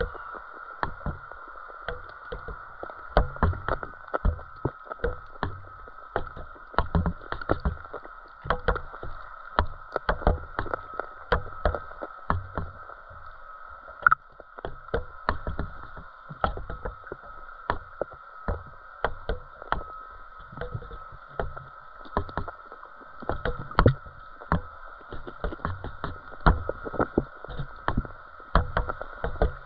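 Muffled underwater sound picked up by a GoPro in its waterproof housing on a floating pole feeder rig: frequent irregular knocks and low thumps, several a second at times, over a steady high hum.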